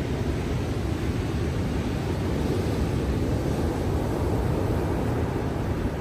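Rough winter surf breaking in a steady low roar, with wind buffeting the microphone.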